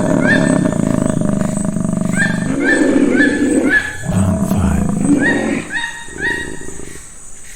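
Wild animal sound effects: low, rough animal calls in several stretches of one to one and a half seconds, with short rising higher-pitched calls repeating about twice a second over them, dying down near the end.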